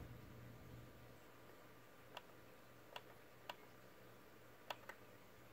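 Five faint, irregularly spaced clicks as the sound-mode button on a Marantz SR7010 AV receiver's front panel is pressed to step through surround modes, with the program sound muted and only a faint low hum between clicks.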